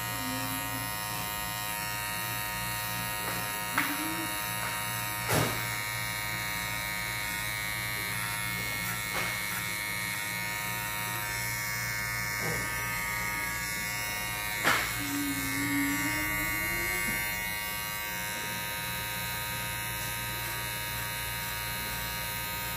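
Cordless electric hair clippers buzzing steadily while trimming the hair at the nape and neckline, with a few sharp clicks.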